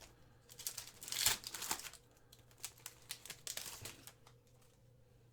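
Foil wrapper of a trading-card pack crinkling and tearing open, loudest a little over a second in, with scattered crackles dying away by about four seconds.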